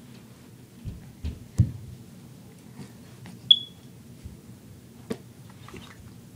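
Fingers handling and tapping an iPod Touch while entering a search: a few soft thumps about a second in, a sharp click about five seconds in, and one short high beep about three and a half seconds in. A low steady hum runs underneath.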